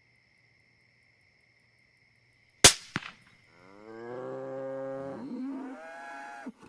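A single rifle shot cracks about two and a half seconds in, followed a third of a second later by a second, quieter crack. A bull then bellows in one long call that rises in pitch and holds, followed by a shorter second call near the end. Before the shot a faint steady high whine is heard.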